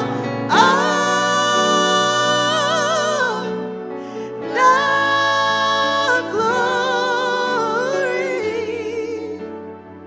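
Slow gospel praise-and-worship song sung by a small vocal group, a woman's voice leading, in long held phrases with vibrato over a steady sustained backing. The singing eases off near the end.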